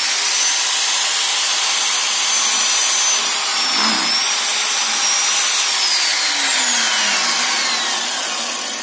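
Electric miter saw running at full speed with a high steady whine. Its Bull carbide-toothed blade crosscuts a timber board around the middle, briefly dragging the pitch down. The trigger is then released and the whine falls steadily as the motor and blade spin down.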